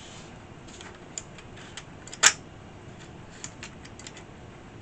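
Clicks and light knocks from an opened Atari 1050 floppy disk drive being handled and its front mechanism worked by hand, with one sharp click about two seconds in.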